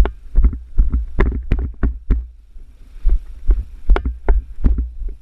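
A run of irregular thumps and knocks, about two or three a second, over a low rumble.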